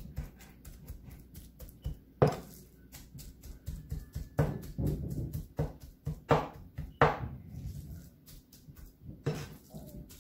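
A meat cleaver chopping raw shrimp into a mince on a wooden cutting board: a fast run of chops, with a few heavier strikes standing out.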